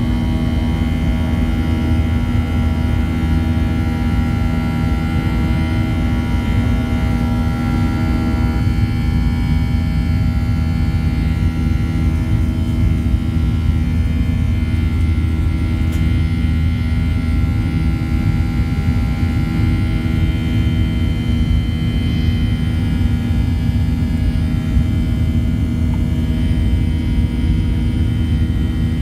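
A passenger airplane's engines heard inside the cabin as it climbs just after takeoff: a steady loud rumble with a drone of several steady tones, which shift slightly in pitch about eight seconds in.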